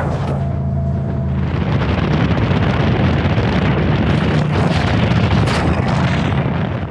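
Heavy wind rush and buffeting on the microphone of an open race truck at highway speed, over the steady drone of its LS V8 engine. The rush swells about a second and a half in, stays loud, and cuts off suddenly at the end.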